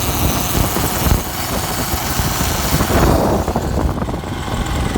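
2006 Kawasaki KLR 650 motorcycle running, buried under a loud, steady rush of wind-like noise on the microphone. The hiss thins out near the end.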